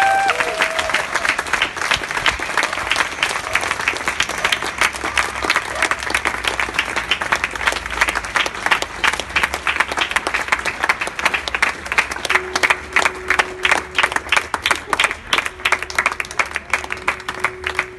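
Street crowd applauding and clapping, with a woman's last sung note ending right at the start. The clapping thins to more separate claps in the later part, and a steady low tone sounds for the last several seconds.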